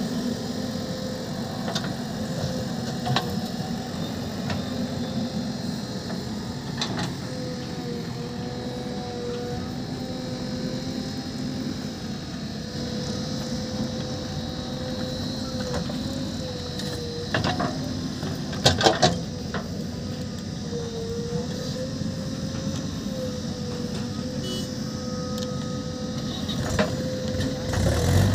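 Diesel engines of a JCB 3DX backhoe loader and a Mahindra tractor running steadily while the backhoe digs and loads soil. The engine hum dips briefly in pitch now and then. A few sharp knocks come about two-thirds of the way through.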